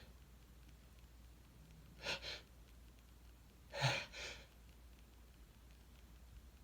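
A man's sharp, gasping breaths while building up toward a sneeze that doesn't come: one short gasp about two seconds in, then two more breaths in quick succession near four seconds.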